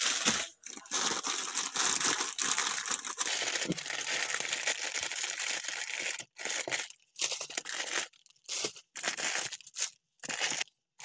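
Plastic instant-noodle packets crinkling and rustling as a hand moves them around in a cardboard box. Steady for about six seconds, then in short stretches broken by brief silences.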